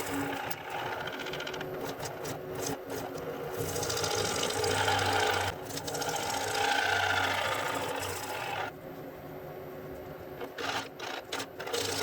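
Machine tool running with its cutter feeding slowly on power feed, cutting metal with a brass or bronze chip load. The cutting noise swells and fades, then drops away about three-quarters of the way through, leaving the machine running with a few sharp clicks.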